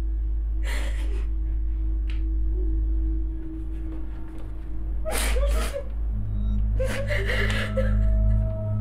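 A woman crying, with sharp gasping sobs about a second in, around five seconds in and again near seven seconds. Under them runs a low, sustained musical drone that moves to a new held chord about six seconds in.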